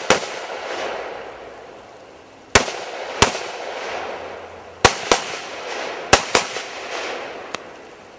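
Rifle shots, about seven, mostly fired in quick pairs, each followed by a long rolling echo.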